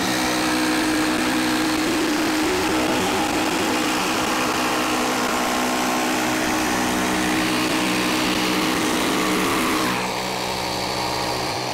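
Festool Carvex jigsaw running steadily as its blade cuts through an elm slab along a line to remove waste material. The sound drops a little about ten seconds in and stops near the end.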